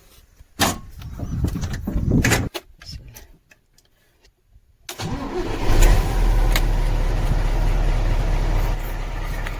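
Mercedes-Benz SK truck's diesel engine being cranked by the starter in the first few seconds, then, after a brief dead gap, running at a steady idle with a deep low rumble. It starts on freshly cleaned and reconnected battery and earth cables.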